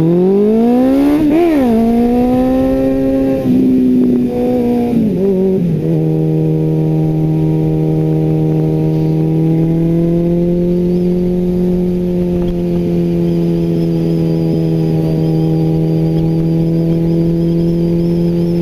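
Sport touring motorcycle engine, heard from the rider's helmet. Its revs climb hard and fall back through a few upshifts over the first six seconds, then hold a steady note as the bike cruises.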